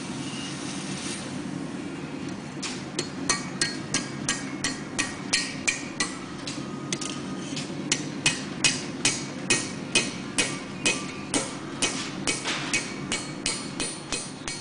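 Blacksmith's hand hammer striking hot steel held in tongs on an anvil: a quick run of ringing blows, about three a second, starting a couple of seconds in, thinning out briefly around the middle and then picking up again. A steady low hum runs underneath.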